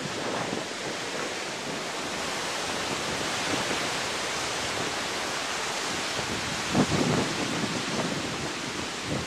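Pacific surf breaking and washing up the sand, a steady rushing hiss, with a brief louder low rumble about seven seconds in.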